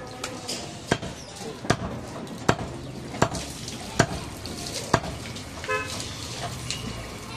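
A heavy butcher's knife chopping goat meat on a wooden log block: sharp chops about one every three-quarters of a second, six or seven in all, stopping about five seconds in.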